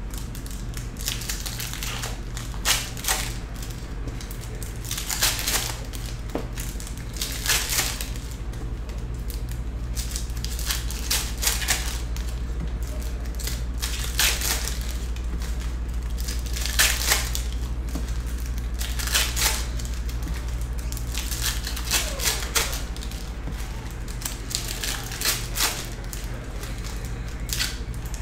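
Glossy chromium Donruss Optic trading cards being flipped one at a time off a stack in the hand, each card sliding off with a short swish or snap. The strokes come irregularly, about every second or two, over a steady low hum.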